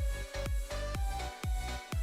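Electronic background music with a steady, thumping drum beat and a held synth tone.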